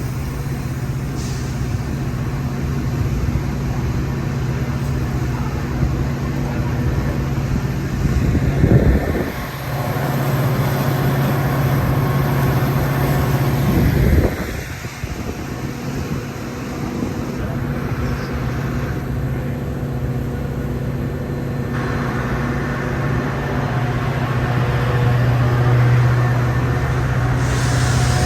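Metra commuter train's diesel locomotive running with a steady engine hum, rising in two brief louder surges about nine and fourteen seconds in.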